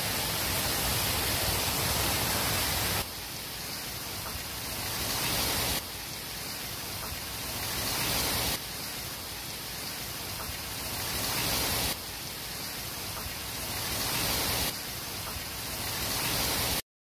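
Heavy rain mixed with hail falling on a backyard, a steady hiss of rain and hailstones. The level drops abruptly every few seconds and builds up again, and near the end it cuts off to silence.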